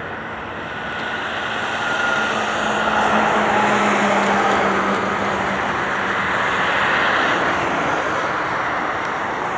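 Dassault Falcon 7X business jet's three Pratt & Whitney Canada PW307A turbofans at takeoff power as it rolls, lifts off and climbs away. The jet noise swells about a second in, holds strongest through the middle and eases slightly near the end, with a steady low drone under it for most of that time.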